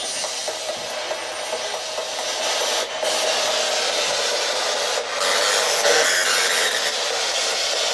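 Steady radio-static hiss from a handheld spirit box, the sweeping radio device that investigators ask spirits to speak through. It breaks off briefly about three seconds in and again about five seconds in.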